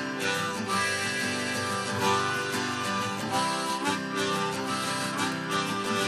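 Acoustic guitar strumming steadily with a harmonica melody held over it, in the instrumental opening of a lo-fi folk song.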